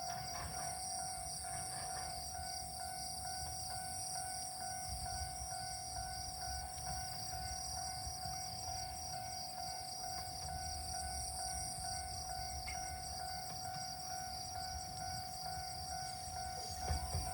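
Summer evening insect chorus: a steady buzzing tone with a rapid pulsing trill higher up, and a faint low rumble building near the end.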